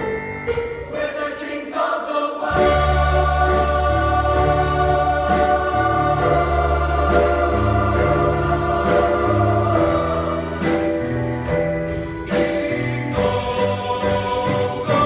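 Choir singing long held chords over a loud backing track with bass and drum hits.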